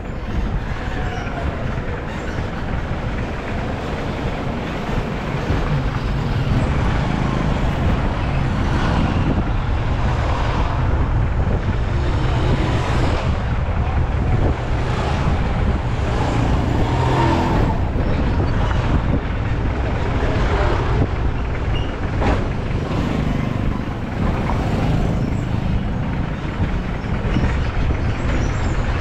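A car driving through city traffic: a steady rumble of engine and road noise, louder from about six seconds in, with other traffic passing.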